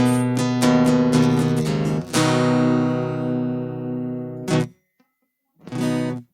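Acoustic-electric guitar with a spruce top and mahogany back and sides, strummed in chords. A chord about two seconds in is left to ring for a couple of seconds and then damped, and after a short pause one last brief chord is strummed and cut off.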